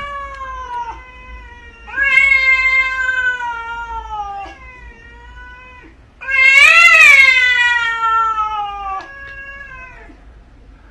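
A cat yowling in three long, drawn-out howls, each falling in pitch as it trails off. The loudest comes about six seconds in and rises and falls in pitch.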